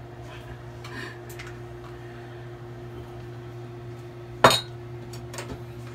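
Steady low room hum with a few faint taps, and one sharp clink of a hard object, about four and a half seconds in.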